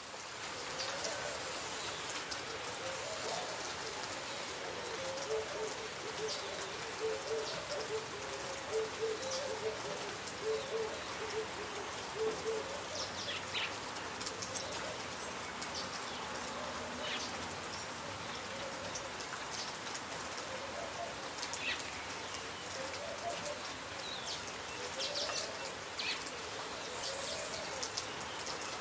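Steady rain falling on broad leaves, with scattered drips. Behind it a bird repeats a short rising-and-falling call about once a second, with a quicker run of notes near the middle.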